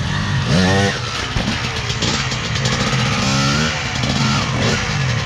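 TM 300 dirt bike engine running with a steady low note and revved up sharply twice, about half a second in and again just after three seconds.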